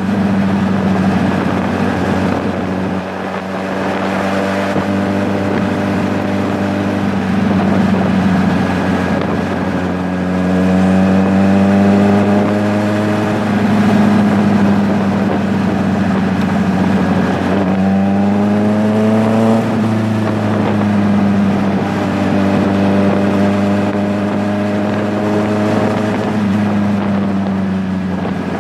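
An engine running steadily, its pitch rising and falling gently a few times.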